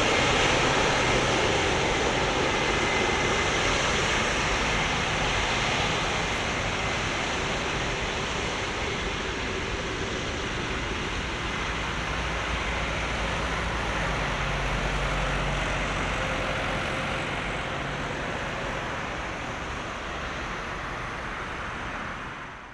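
Boeing 777-300ER's GE90 jet engines on landing: a steady rushing noise with a faint high whine, slowly fading, then cutting off abruptly near the end.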